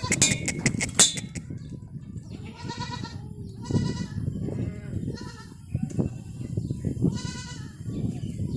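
Goats bleating: four separate bleats spread over several seconds. A run of sharp clicks comes in the first second.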